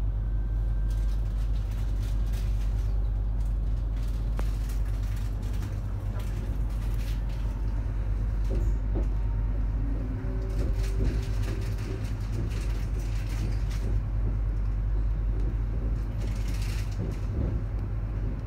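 Inside the carriage of an ES2G "Lastochka" electric multiple unit on the move: a steady low rumble with occasional clicks and knocks from the running gear. There is a short hiss near the end.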